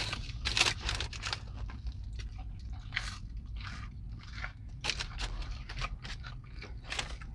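Close-up crunching and chewing as two people eat a breaded fried fish sandwich and fries, with irregular sharp crunches throughout. A low steady hum sits underneath.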